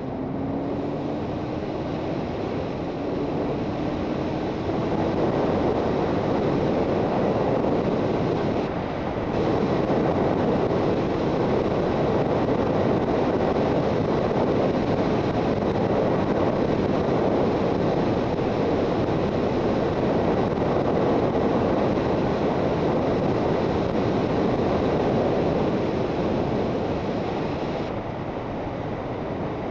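Suzuki GSX650F motorcycle's inline-four engine running under way, buried in heavy wind rush on the microphone. Its pitch rises over the first few seconds as the bike gathers speed, and there is a short dip about nine seconds in.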